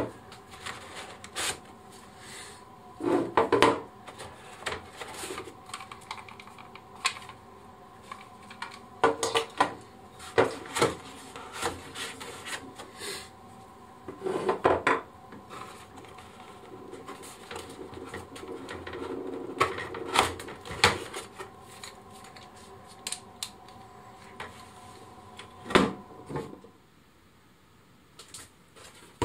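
Handling noise from unpacking a cordless drill kit: hard plastic battery packs, a charger and tools lifted out of the foam insert of a plastic tool case and set down. The result is irregular clicks, knocks and rubbing, with a few louder knocks. A faint steady hum lies underneath and stops near the end.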